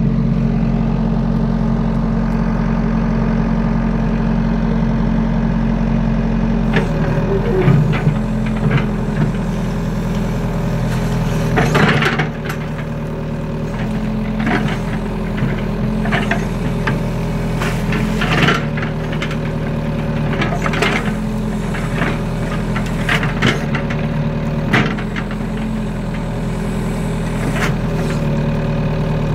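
Kobelco SK03 excavator's diesel engine running steadily. About seven seconds in its note changes as the arm and bucket start working the mud, and repeated knocks and clanks from the bucket and arm come through over it.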